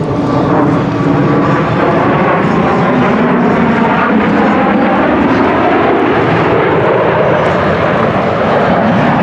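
Jet aircraft flying past, a loud steady engine noise whose pitch slides slowly as it passes.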